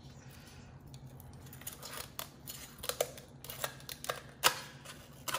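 Scattered sharp clicks and snips of kitchen scissors working on a red sea urchin's shell over a stainless steel bowl, the loudest about four and a half seconds in.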